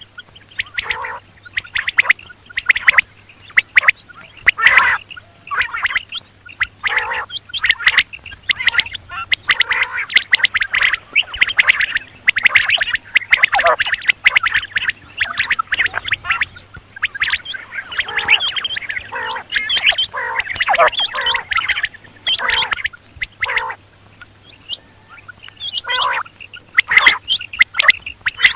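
Quail calling: many short calls in quick succession, thickest through the middle and sparser near the end. A faint low hum runs underneath.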